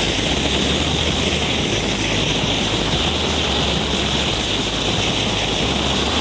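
Cone fountain fireworks burning, giving a loud, steady hiss as they spray showers of sparks.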